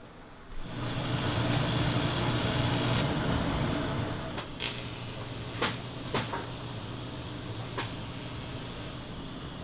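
AC TIG welder arc on a cracked aluminium hood: a steady buzzing hiss that starts about half a second in, with a few sharp clicks later on.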